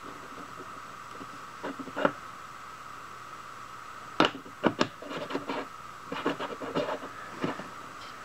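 Metal drill-bit chuck of a Vevor drill bit sharpener being handled and fitted into the sharpener's port: a couple of clicks about two seconds in, three sharp knocks a little after halfway, then smaller clicks and rubbing, over a steady faint hum.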